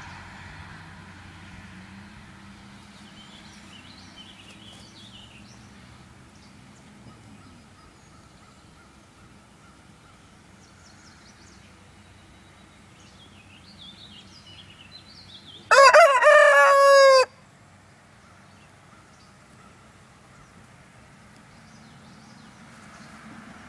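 A rooster crows once, a single loud call about a second and a half long that drops in pitch at its end, about two-thirds of the way in.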